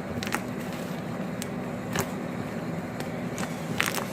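Homemade glittery slime being poked and worked by hand, giving scattered sharp little clicks and pops as air bubbles burst, over a steady low hum.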